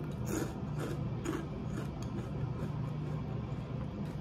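Crisp puffed shrimp crackers being bitten and chewed with the mouth, a few short crunches about twice a second in the first two seconds, over a steady low hum.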